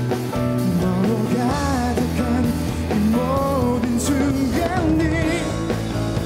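Male singer singing a Korean-language pop-rock song live, backed by electric guitar, bass guitar, drum kit and keyboard.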